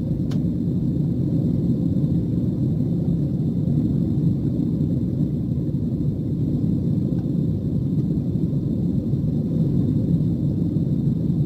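Steady low rumble of a jet airliner's engines and airflow heard inside the passenger cabin during the climb after takeoff.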